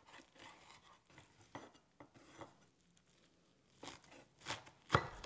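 A knife cutting through a pressed ball of blanched spinach onto a wooden cutting board: a few faint, soft cutting strokes with a pause in the middle, the loudest one near the end.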